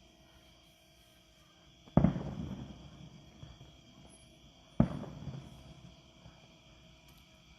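Two aerial fireworks shells bursting, about three seconds apart, each a sharp boom followed by a rumbling tail that dies away. A faint steady hum runs underneath.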